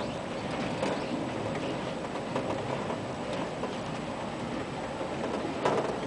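Small car of an auto chair track ride rolling along its track: a steady rumble with irregular clicks and clacks, and a louder clunk near the end.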